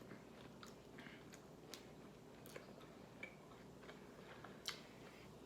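Faint eating sounds: scattered soft clicks and smacks of chewing, the strongest about three-quarters of the way through, over a quiet room.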